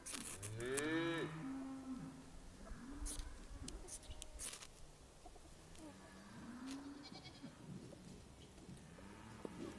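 An animal's call, rising then falling, about a second in, followed by quieter low drawn-out calls and a few short sharp sounds.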